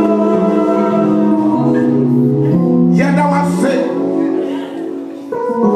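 Church music: singing over instrumental accompaniment, with long held notes that shift in pitch every second or so. It dips briefly in loudness near the end.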